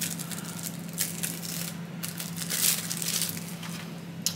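A plastic ketchup packet being torn open and handled: crinkling and tearing in irregular bursts, with a sharp click near the end.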